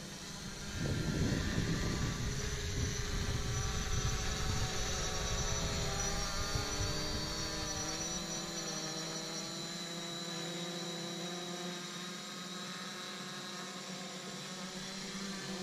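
JJRC X11 Scouter quadcopter drone's propellers whining as it flies its automatic circle, the pitch of the whine shifting as it goes round. A low rumble joins in about a second in and fades after about six seconds.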